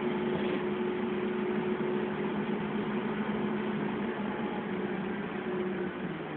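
Dennis Trident double-decker bus running along the road, its diesel engine a steady drone with road noise, heard from inside the passenger cabin. The drone dips briefly near the end.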